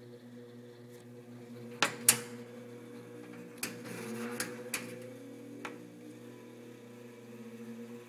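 20-inch GE box fan running with a steady motor hum and several overtones. Sharp clicks break in: two loud ones about two seconds in, then a few lighter ones between three and a half and six seconds.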